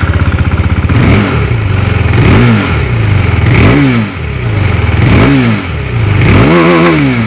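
KTM Duke 390's single-cylinder engine idling and being blipped five times, each a quick rise and fall in revs, the last blip held a little longer.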